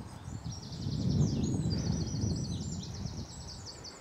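A songbird singing fast runs of rapidly repeated high chirping notes, over a low fluctuating rumble.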